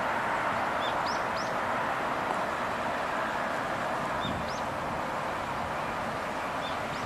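Steady outdoor background noise, like distant city traffic, with a few short rising bird chirps in twos and threes, about a second in, about four and a half seconds in, and again near the end.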